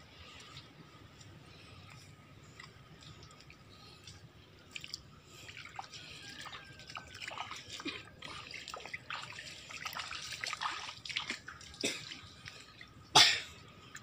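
Wet squelching and splashing of footsteps through soaked sand and shallow tide pools on a mangrove mudflat, irregular and growing busier about five seconds in. A single sharp knock near the end is the loudest sound.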